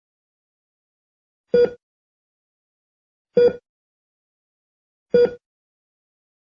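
Heartbeat sound effect: three single beats about 1.8 seconds apart, slow and even, with total silence between them.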